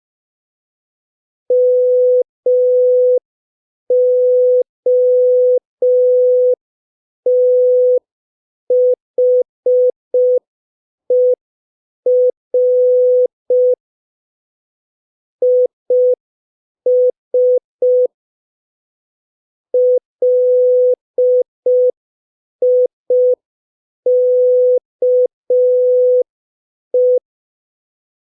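Morse code practice tone at 5 words per minute: one steady mid-pitched beep keyed on and off in short dots and longer dashes. The dots and dashes are grouped into characters separated by silent gaps, with a couple of longer pauses between groups.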